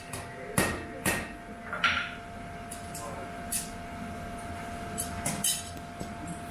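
Hand hammer striking a knife blade on a forge anvil: two sharp blows about half a second apart near the start, then a duller knock and a few fainter clicks, over a steady faint hum.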